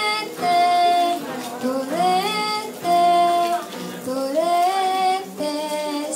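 A girl singing a Tagalog song with acoustic guitar accompaniment: three sung phrases, each gliding up into a long held note.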